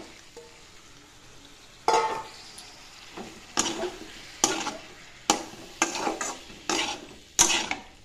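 A wooden spatula stirs and scrapes vegetables frying in a metal kadai. There are about seven separate strokes from about two seconds in, over a soft steady sizzle.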